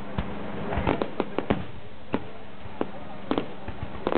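Fireworks bursting in an irregular string of sharp bangs and cracks. A quick cluster comes about a second in, then scattered single bangs.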